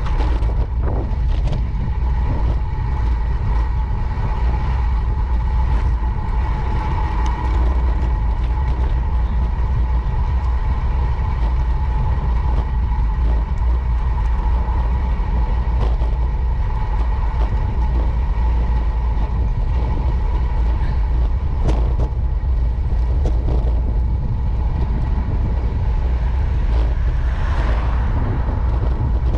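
Riding sound picked up by a bicycle-mounted camera: a loud, steady low rumble of wind and road vibration, with a thin steady whine over it and a few sharp knocks.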